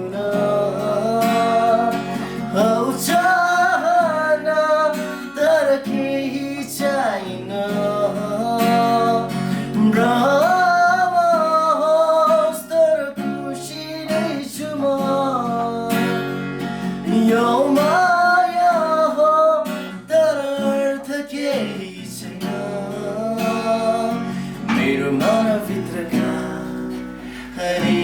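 Background music: a song with a male voice singing over strummed acoustic guitar.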